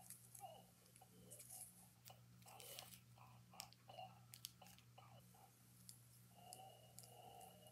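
Plush reindeer toy's sound box running on low batteries, giving only faint, crackly, wavering sound with scattered clicks and then a faint held tone near the end.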